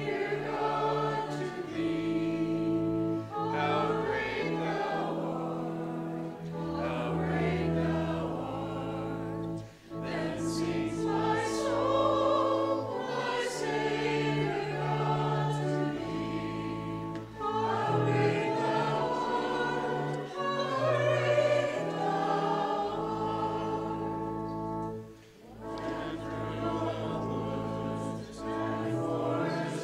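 A mixed group of church singers, choir and congregation, singing a hymn together from hymnals. They hold long sustained notes, with brief pauses for breath between phrases about ten seconds in and again about twenty-five seconds in.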